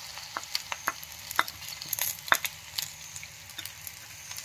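Split green chillies and garlic frying in sesame oil in a clay pot: a faint steady sizzle with irregular sharp crackles and pops from the hot oil, as crushed mustard is added.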